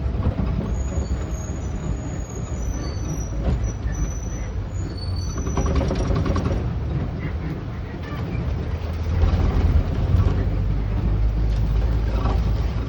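Open-sided safari ride truck driving along a rough track: a steady, heavy low rumble of engine and road.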